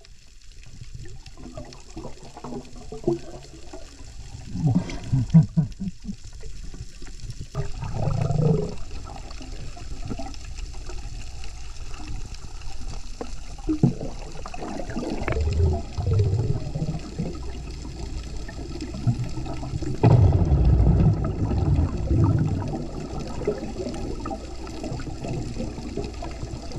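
Muffled underwater sound of water rushing and bubbling as freedivers swim and breathe out bubbles, coming in uneven surges with louder gurgling bursts.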